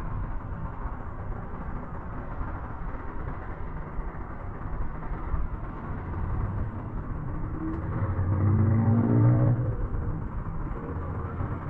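Cable car gondola riding along its cable: a steady rumble and hiss from the moving cabin, with a louder drone rising in pitch about eight seconds in.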